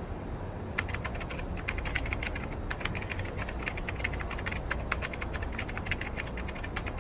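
Computer keyboard typing: a quick, uneven run of keystrokes starting about a second in.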